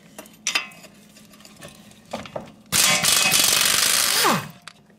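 Impact wrench hammering the nut off the lower strut-to-knuckle bolt of a Subaru Outback's front suspension: one loud rattling burst of about a second and a half, ending as the motor spins down. A few light clicks of the socket and a wrench being fitted come first.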